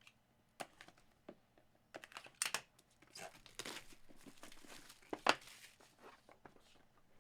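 Packaging of a trading-card box being opened by hand: crinkling and tearing, with several sharp clicks, the loudest about five seconds in.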